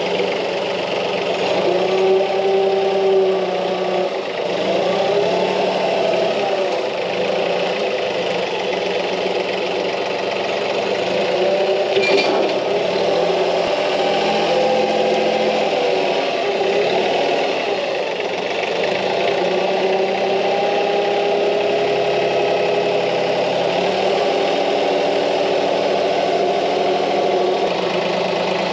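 Branson 2515h compact tractor's three-cylinder diesel engine running steadily, its pitch rising and falling several times as the front loader and its tooth-bar bucket are worked against a bush. A sharp knock about twelve seconds in.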